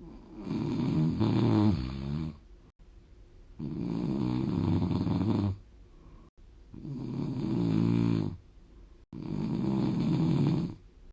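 A person snoring: four long snores, each about two seconds, coming about every three seconds with quiet breathing gaps between.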